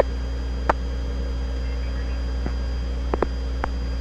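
Steady hum and hiss of an open air-to-ground radio channel between transmissions, broken by several short static clicks, two close together past the three-second mark.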